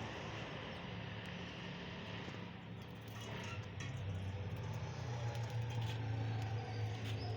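Low hum of a motor vehicle engine running, growing louder over the last few seconds, with a few faint clicks.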